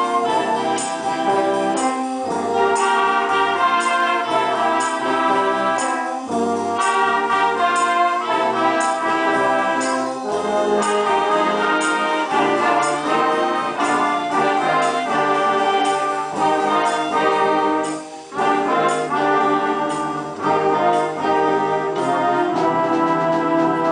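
Concert band of brass and woodwinds, clarinets among them, playing a piece together over a steady beat, with a brief break about 18 seconds in.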